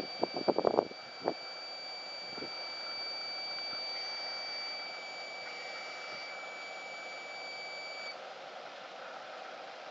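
Battery-powered smoke bubble machine running, with a steady fan noise and a steady high-pitched whine that cuts off about eight seconds in. A quick run of sharp clicks comes in the first second or so.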